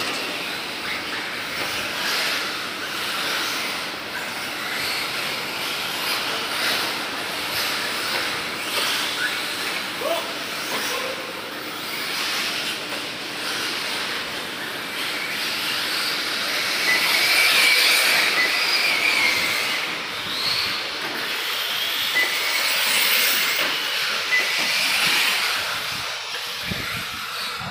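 Electric 1/8-scale RC buggies racing: a steady hiss of tyres and electric motors, with a high motor whine rising and falling, loudest about two-thirds of the way through.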